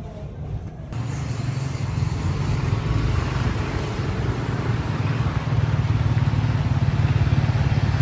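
Road vehicle on the move: a loud, steady rumble of engine and road or wind noise that sets in about a second in.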